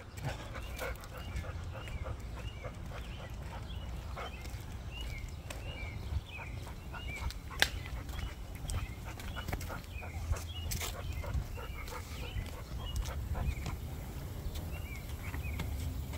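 A boxer dog panting in a quick, even rhythm while walking on a leash, with scattered faint clicks and a low steady rumble underneath.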